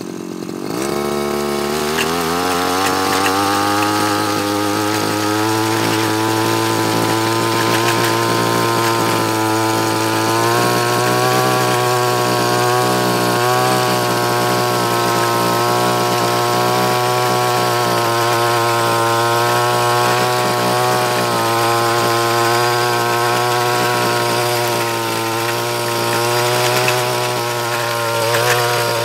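Two-stroke engine of a Stihl FR 3001 backpack brush cutter, fitted with a tiller gearbox head, revving up over the first two seconds and then running steadily at high speed as the tines churn soil.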